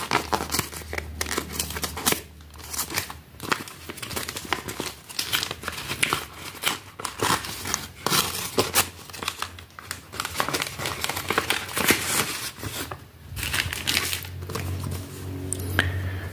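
Plastic courier mailer crinkling and tearing as it is ripped open by hand, in quick, irregular crackles.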